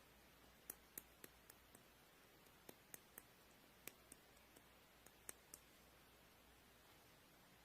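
Faint, irregularly spaced small clicks, about a dozen over several seconds, stopping well before the end; otherwise near silence.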